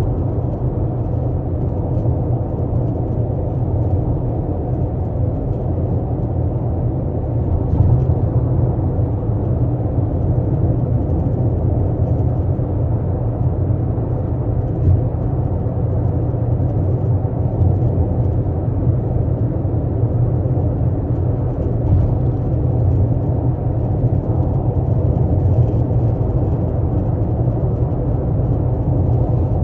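Steady low rumble and whir from a 12th-generation Toyota Corolla Altis, with a few faint ticks, recorded as an abnormal noise (異音) from the car.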